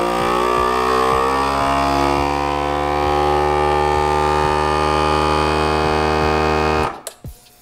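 FoodSaver GameSaver Outdoorsman vacuum sealer's pump motor running with a steady whine as it sucks the air out of the bag, its tone shifting over the first two seconds, then cutting off suddenly near the end.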